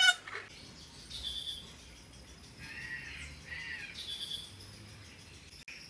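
A sharp knock at the start, then several short bird chirps and calls, two of them arching in pitch.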